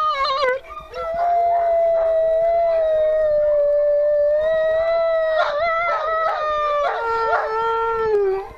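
A female wolf howling: one long held note that slowly falls in pitch, breaking in the middle into a few quick wavering notes, then settling into a lower held note that stops shortly before the end.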